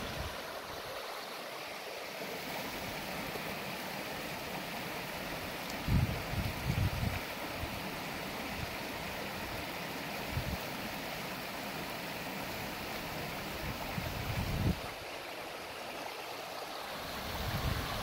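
Shallow creek water running steadily over rocks in riffles, an even rushing. A few brief low rumbles come and go over it, around six, fifteen and eighteen seconds in.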